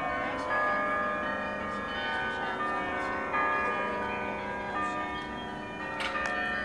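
Carillon bells of the Martinitoren playing a tune: many struck bell notes at different pitches ringing on and overlapping.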